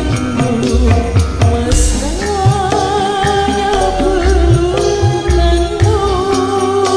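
Old dangdut song played slowed down with added reverb: repeated low drum hits under a wavering melody line.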